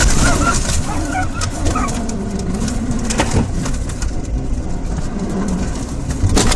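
Loud rushing and rumbling in a car spinning out on a snowy highway, with sharp knocks about three seconds in and again near the end.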